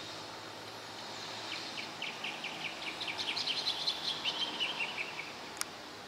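A pair of horneros singing a duet: a fast series of short ringing notes, starting about a second and a half in, that grows louder, then runs down in pitch and stops after about four seconds. A single sharp click just before the end.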